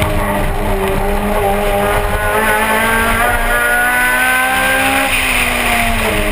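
Car engine under hard acceleration, its pitch climbing steadily for about three seconds before falling away about five seconds in. Heard from outside the moving car, with rushing wind and road noise.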